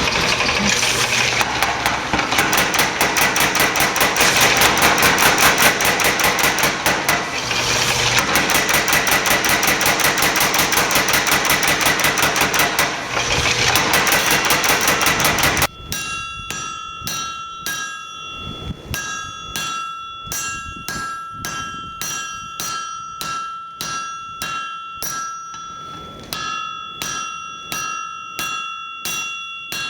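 A mechanical power hammer pounding hot steel in a fast, steady rhythm. About halfway through it stops suddenly and hand-hammer blows on the anvil follow, about two a second, each with a clear ringing tone.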